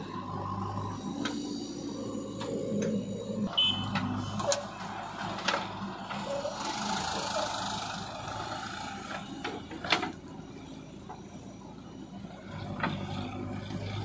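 JCB backhoe loader's diesel engine running under load as the hydraulic arm works the bucket, dumping soil and digging into a heap of earth and stones. Several sharp knocks of the bucket and soil come through, the loudest about ten seconds in.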